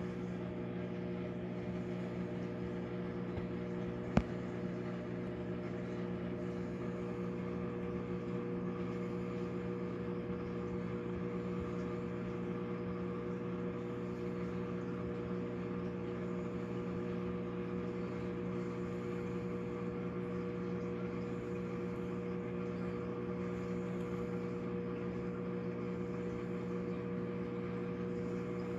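Steady machine hum made of several fixed low tones, unchanging throughout, with a single sharp click about four seconds in.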